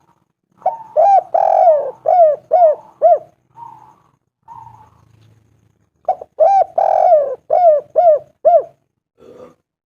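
Spotted dove (tekukur) cooing: two phrases of about six short, clear coo notes each, with a longer, fuller note early in each phrase; the second phrase starts about six seconds in.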